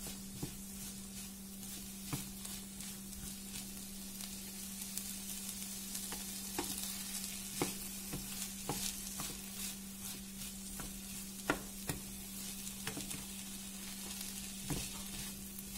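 Wooden spoon stirring boiled groundnuts with tomato and onion in a nonstick frying pan: a soft sizzle with scattered clicks and knocks of the spoon against the pan, over a steady low hum.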